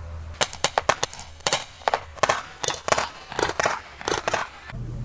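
A gun firing a rapid, uneven string of about fifteen to twenty sharp shots over about four seconds, in close clusters. A steady low hum starts near the end.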